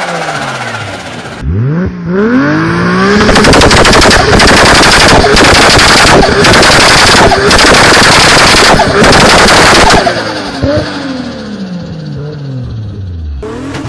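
Turbocharged car engines revving hard and decelerating, with loud, rapid fluttering chatter of turbo compressor surge on throttle lifts, over several short clips. The loudest stretch is a dense rattling run broken by brief pauses, followed by the engine pitch falling away.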